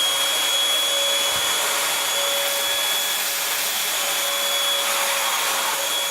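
Bissell 3-in-1 stick vacuum motor running steadily at full speed with a high whine, switched on to test suction after repair.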